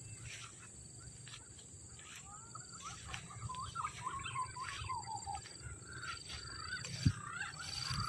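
Rustling and footsteps through tall grass and brush, with birds chirping in the background in short, wavering calls and a thin, steady high insect tone. One sharp knock sounds about seven seconds in.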